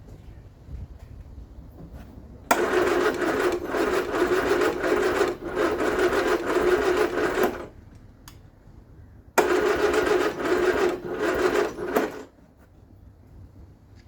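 Vauxhall Viva HC's starter motor cranking the engine in two bursts of about five and three seconds, each a steady whirring hum that starts and cuts off suddenly.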